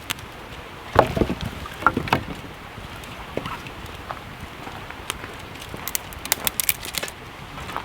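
Scattered knocks and clicks, the loudest a thump about a second in, over a steady rushing hiss.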